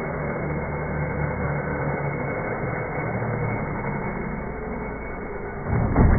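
Slowed-down, deep and muffled rumble of an Arrma Infraction RC car flying off a dirt jump, ending in a heavy low thud as the car lands near the end.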